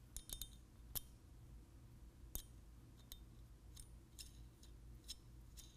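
Small sharp metallic clicks and ticks, scattered irregularly and faint over a low room hum: bolt, washer and nylock nut hardware knocking against steel brackets as they are fitted together by hand.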